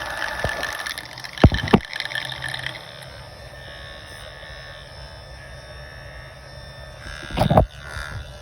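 Kenmore dishwasher circulation pump running with a high-pitched whine, the noise the dishwasher has been making, which the owner puts down to the failing circulation pump. Two sharp knocks come about a second and a half in, and the whine drops away about three seconds in, leaving a lower steady running hum. A loud thump comes near the end.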